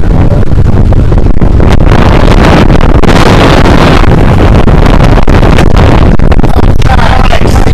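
Motorboat running underway: a steady, loud engine drone mixed with rushing water, with wind buffeting the microphone.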